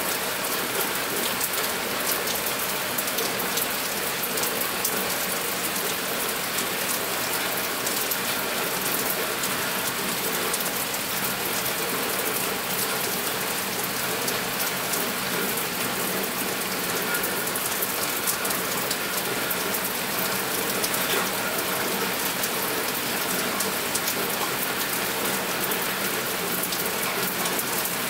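Steady rain falling: an even hiss dotted with many small drop ticks, unchanging throughout.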